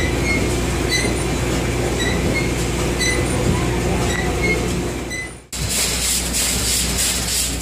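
Steady low mechanical rumble aboard the steamboat Virginia V. About five seconds in it cuts to her triple-expansion steam engine running close up, a hissing, rhythmic clatter of its moving parts.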